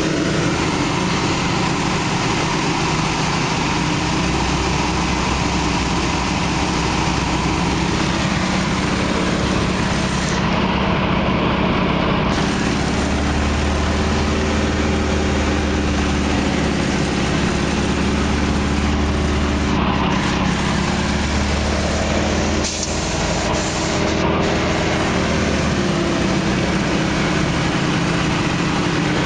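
Yak-52's nine-cylinder M-14P radial engine and propeller running in flight, heard from inside the cockpit; the engine note shifts up and down in pitch as the plane manoeuvres.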